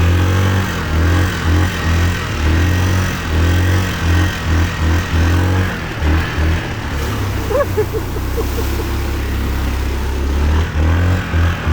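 Yamaha Kodiak 450 ATV's single-cylinder four-stroke engine running while being ridden. The throttle is repeatedly opened and closed, giving a choppy rise-and-fall in stretches, with a steadier pull in the middle.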